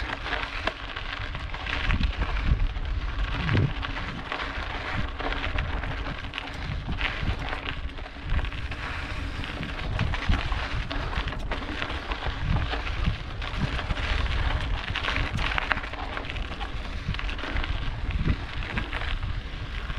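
Mountain bike rolling over a rugged dirt and gravel trail, its tyres crunching and crackling on loose stones, with wind buffeting the microphone.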